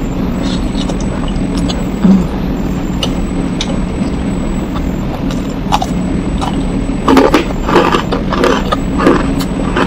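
Close-miked chewing of a mouthful of rice and stir-fried young jackfruit, with short wet mouth clicks that come thickest from about seven to nine seconds in, over a steady low hum.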